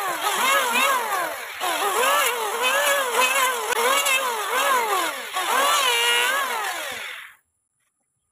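Electric hand planer shaving a wooden block, its motor whine dropping in pitch as the blades bite into each pass and rising again as the load comes off, about once or twice a second. It stops abruptly about seven seconds in, followed by silence.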